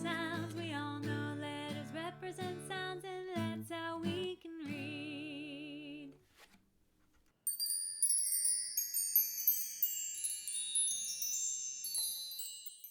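Instrumental music ending on a held, wavering chord about six seconds in; after a short pause, a run of high tinkling chime notes.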